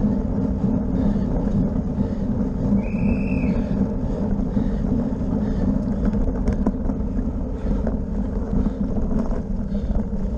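Bicycle rolling fast over cobblestones: a steady, loud rattling rumble from the tyres and frame, dotted with small jolts, with wind buffeting the microphone. A short high squeal cuts through about three seconds in.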